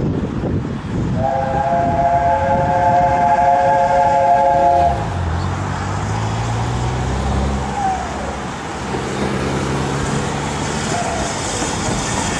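Steam locomotive whistle sounding a steady chord of three notes for about four seconds, followed by the low rumble of the locomotive working as the train approaches.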